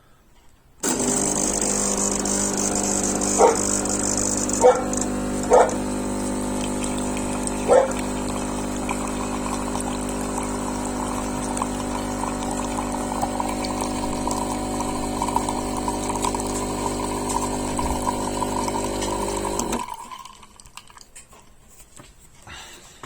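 Klarstein Espressionata Gusto espresso machine's pump running with a steady hum while it pulls a shot of espresso, cutting off suddenly after about nineteen seconds. A dog barks four times in the first several seconds.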